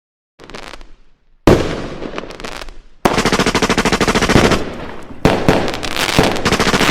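A sudden loud bang about a second and a half in, then from about three seconds a rapid, continuous string of sharp cracks and bangs, with another loud burst starting near the end.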